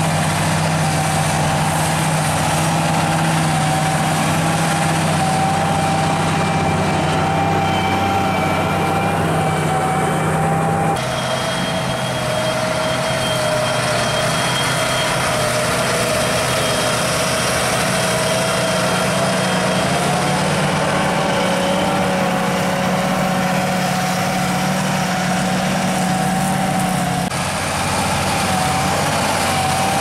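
John Deere 8R-series tractor's diesel engine running steadily under the heavy load of ploughing with a mounted reversible plough, with a steady high whine over the engine note. The engine note shifts abruptly about a third of the way in and again near the end.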